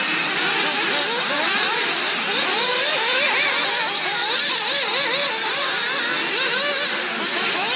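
Several nitro RC cars' small glow-fuel engines running at once, a dense chorus of high-revving buzzes whose pitches rise and fall over and over as the cars accelerate and brake around the track.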